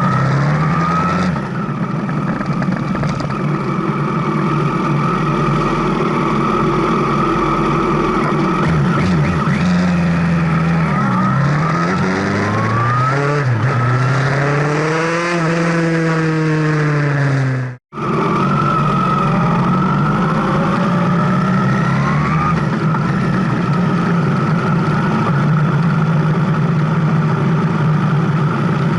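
Motorcycle engine running under way, its pitch holding steady, then climbing and falling back several times as the throttle is opened and closed. The sound cuts out for an instant about two-thirds of the way through, then runs on steadily.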